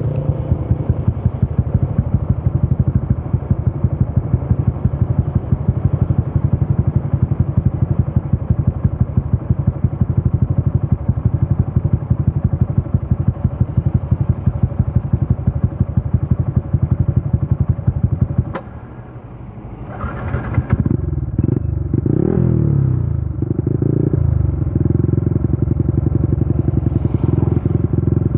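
Yamaha Y15ZR's 150 cc single-cylinder four-stroke engine idling with a steady, even exhaust beat. About two-thirds of the way through it cuts out after a sharp click, then is started again and blipped a few times before settling back to idle.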